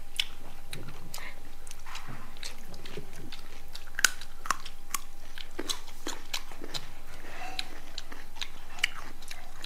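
People biting and chewing pieces of fresh fruit, with irregular crisp crunches and wet mouth clicks.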